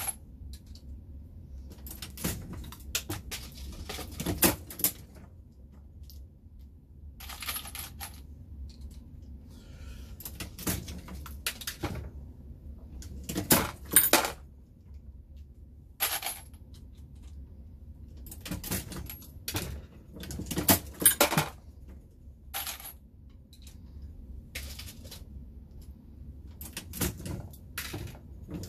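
Dillon Square Deal progressive reloading press being cycled: clusters of metallic clicks and clanks from the press stroke come every few seconds, with brass cartridges clinking as finished rounds drop into the bin.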